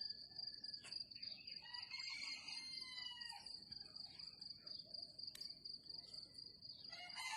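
Insects trilling steadily on one high pitch, with birds calling over it; a louder bird call with several rising and falling notes starts near the end.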